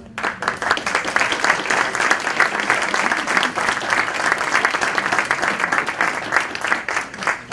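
Audience applauding, many hands clapping at once. The applause starts suddenly and dies away near the end.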